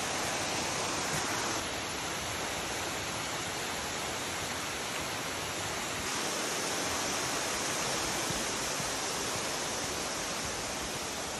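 Waterfall rushing: a steady, even wash of falling water, shifting slightly in level twice.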